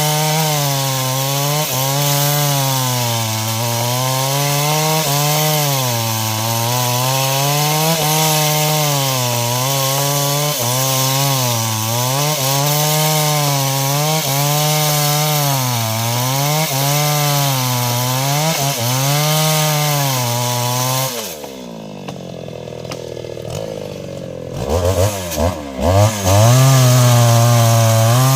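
Stihl MS 381 two-stroke chainsaw cutting wood at full throttle, its pitch sagging and recovering under load every second or two. A little past two-thirds of the way through it drops back to idle, is blipped a few times, then returns to full revs near the end.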